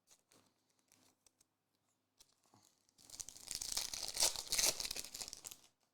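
A trading card pack's foil wrapper being torn open and crinkled. A few faint clicks come first, then the tearing crackle runs for nearly three seconds in the second half.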